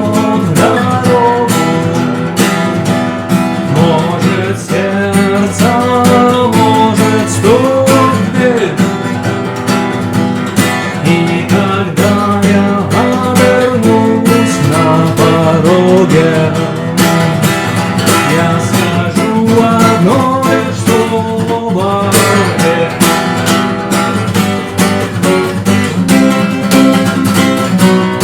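Acoustic guitar strummed in a steady rhythm, with a melody line bending over the chords: an instrumental passage between sung lines.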